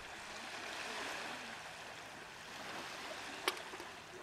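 Steady rushing background noise with a single sharp click about three and a half seconds in.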